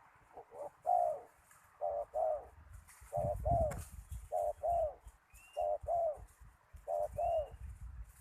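Spotted dove cooing: six short two-note coos in steady succession, a little over a second apart.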